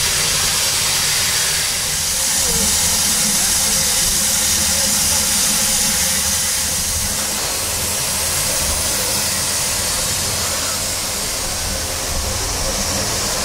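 Steam locomotive letting off steam: a steady hiss that eases a little about halfway through, over a low rumble.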